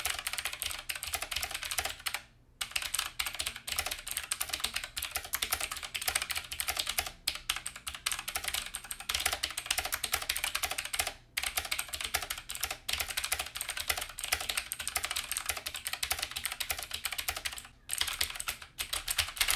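Continuous fast typing on a HAVIT HV-KB366L mechanical keyboard with clicky Outemu blue switches, a rapid stream of key clicks with a few brief pauses.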